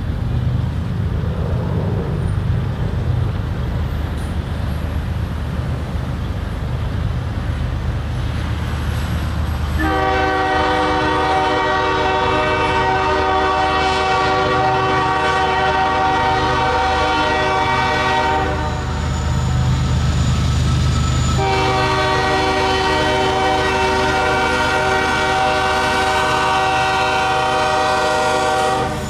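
Approaching CSX ES40DC diesel-electric locomotive: a low engine rumble, then its air horn sounds two long blasts, the first starting about ten seconds in and the second after a break of about three seconds.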